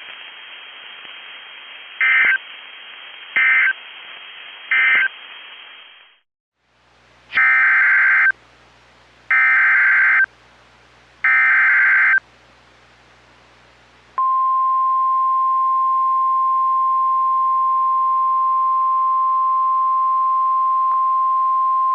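Emergency Alert System data bursts and alert tone. Three short end-of-message bursts sound over radio static. After a brief gap come three longer warbling SAME header bursts of digital data announcing a special marine warning, and then a steady single-pitched 1050 Hz NOAA Weather Radio alert tone.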